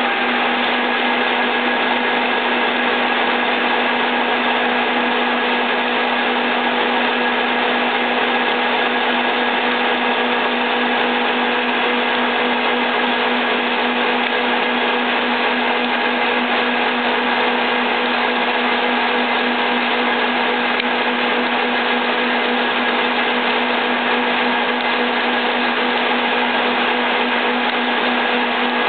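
Soviet 2L614 horizontal boring machine running steadily while a 25 mm drill bit bores into steel. A continuous machine drone with several steady hum tones, unchanged throughout.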